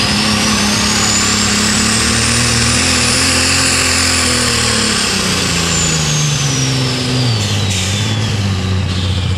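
Light super stock pulling tractor's alcohol-burning, turbocharged engine running hard at full throttle under the sled's load, its note sinking in the second half as the tractor lugs down. A high turbo whine rises over the first few seconds and then falls away.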